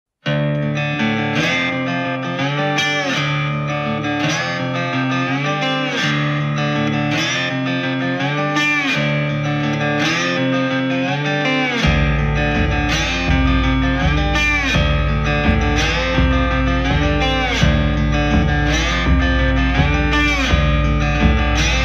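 Instrumental song intro: a guitar plays a repeating phrase with sliding notes, and a low bass part comes in about halfway through.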